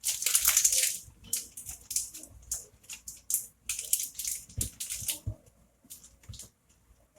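Cheese being shredded on a grater: a run of uneven scraping strokes, the longest in the first second, then shorter ones that thin out near the end.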